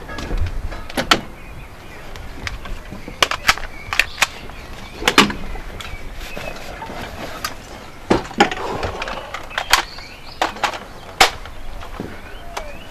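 Irregular sharp knocks and clacks, about a dozen spread unevenly, from a person moving about on a wooden tower deck while handling a toy rifle and pistol.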